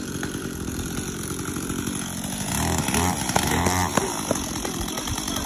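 Gasoline chainsaw engine running, revved up and down a few times about halfway through.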